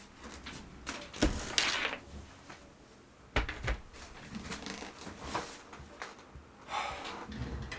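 A person moving about in a small room: clothes rustling and several sharp knocks and thuds from handling things, with the loudest knocks about a second in and again a little past the middle.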